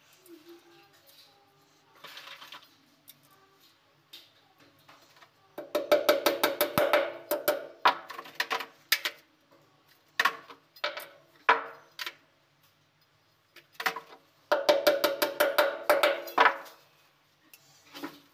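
Rapid sharp knocking with a ringing pitch in two bursts, the first starting about six seconds in and lasting a few seconds, the second about fifteen seconds in, with a few single knocks between and near the end.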